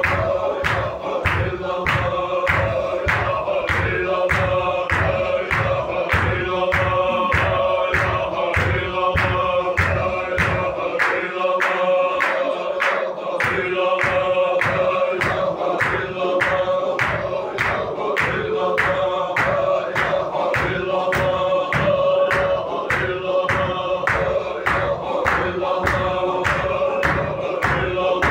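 Men's voices chanting a Sufi zikr together, with sharp rhythmic beats at about two a second. The deep thuds under the beats drop out for a couple of seconds near the middle.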